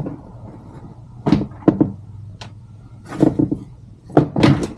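Short knocks and clatters of hard plastic and metal parts being handled and set down on a work surface, in about four brief clusters.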